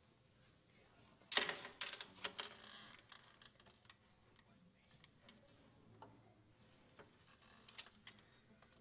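Handling noise: a quick run of small clicks and taps about a second and a half in, then scattered faint clicks. Quiet overall.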